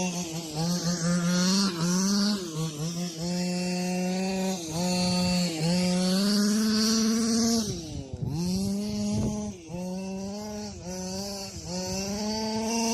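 26cc two-stroke engine of a 1/5-scale RC short-course truck, revving high with the throttle let off and reapplied again and again. About eight seconds in it falls almost to idle, then winds back up.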